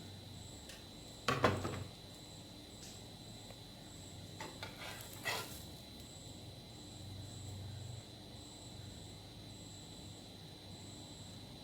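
Two brief scrapes or clatters of cooking utensils on a pan, one about a second in and a few more around five seconds in, over a faint steady background with a thin high whine.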